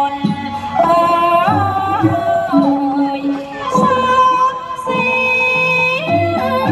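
Thai classical dance music: a woman singing long, sliding held notes over a traditional ensemble.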